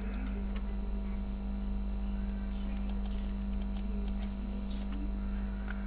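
Steady electrical mains hum and buzz in the recording, with a few faint clicks.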